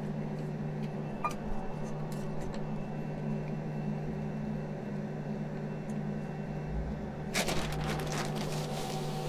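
Induction hob humming steadily as it heats the mash, with a paddle stirring malt into the water; about seven seconds in, a plastic bag of malt grain crinkles.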